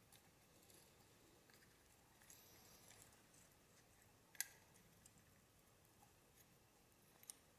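Near silence with small handling clicks, one sharp click about four seconds in and a fainter one near the end, as a CV-boot band-clamp tool is worked on a clamp band.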